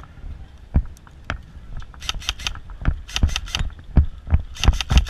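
Airsoft gun being fired, a string of sharp snapping shots at uneven spacing that come faster and louder from about two seconds in.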